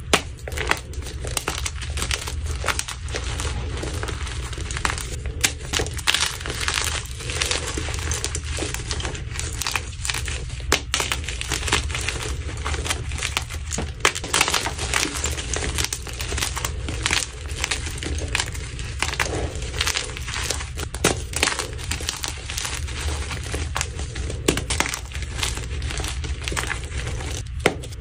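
Hands crushing blocks of dyed gym chalk into powder: dense, continuous crunching and crumbling, with a few sharper cracks as pieces break.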